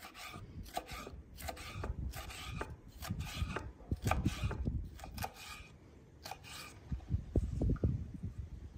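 Chef's knife slicing bell pepper into strips on a wooden cutting board: a run of short cuts, one or two a second, each stroke knocking the blade on the board. The cutting stops near the end, leaving a few dull bumps.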